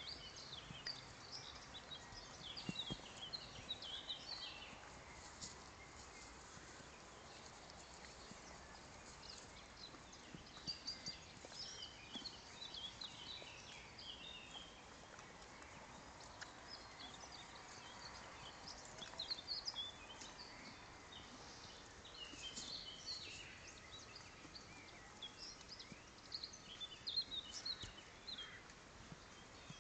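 Songbirds chirping and singing in scattered bursts over faint, steady outdoor noise, with a horse cropping and chewing grass close by.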